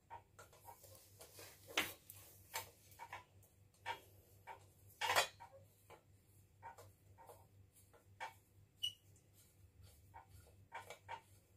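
Faint, irregular metallic clicks and clinks as a screw is turned into a black metal table frame by hand, with two louder knocks about two and five seconds in.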